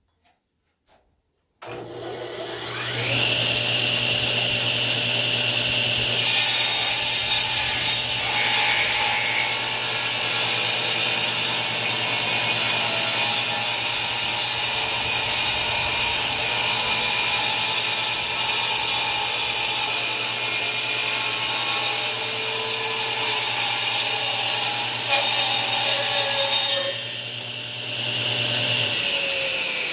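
Table saw switched on, its motor and blade spinning up with a rising whine, then cutting through a live-edge mulberry slab for about twenty seconds. Near the end the cut finishes and the blade whine falls as the saw winds down.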